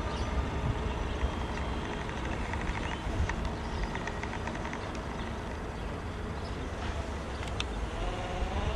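Intercity train worked by an E402B electric locomotive with a pilot car, pulling out and running along the track: a steady rumble of wheels and rolling stock, with a quick run of clicks about two to three seconds in and a short wavering whine near the end.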